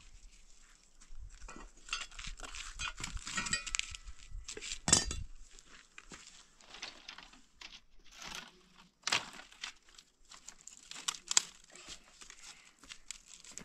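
Scattered clinks, knocks and rustling of hands-on outdoor cooking work: a metal bowl and pot handled on stony ground, and dry sticks moved at a stone fire pit. The loudest knock comes about five seconds in, with sharper knocks again near the end.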